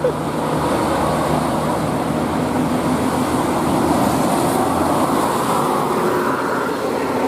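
Steady road-traffic noise: a vehicle's engine and tyre rumble running on evenly, with no horn sounding.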